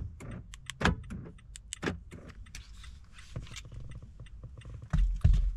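Newly programmed Nissan smart key fob being handled and its buttons pressed, a scatter of sharp clicks, then two heavy low thumps about five seconds in, the loudest sounds.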